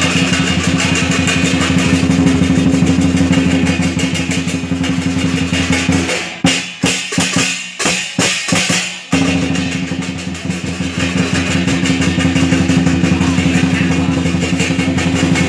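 Lion dance percussion, a drum with cymbals, playing a fast, loud continuous roll. About six seconds in it breaks into about seven separate, evenly spaced strikes over three seconds, then the fast roll picks up again.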